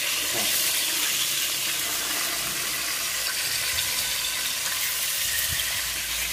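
Salmon fillets frying in hot olive oil: a steady sizzle.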